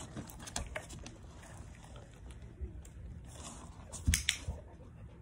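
A dog taking a treat from a hand and chewing it, with scattered small clicks and two sharp, loud clicks a little after four seconds in.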